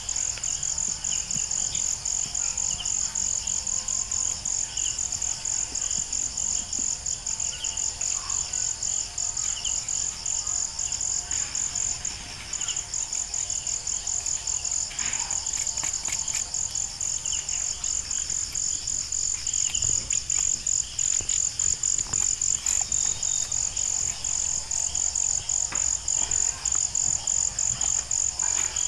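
Steady, high, rapidly pulsing chorus of insects, with a bird chirping about once a second in the first several seconds and a few scattered clicks and knocks.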